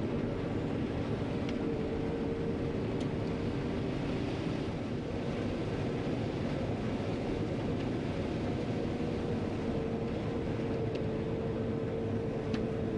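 John Deere 9500 combine running steadily while harvesting corn, a constant machine drone with a held whine.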